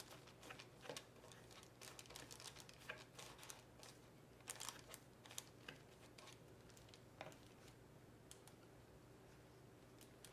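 Faint scratching and light tapping of a paintbrush mixing acrylic paint on a palette, the small sounds thinning out in the second half, over a faint steady low hum.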